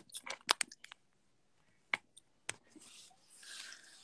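A few sharp, faint clicks and taps from long fingernails handling and tapping a smartphone, several in quick succession at first, then two single taps, with a soft rustle near the end.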